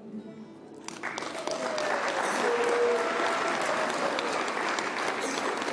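Audience applause breaking out about a second in and carrying on steadily, with a voice or two calling out over it.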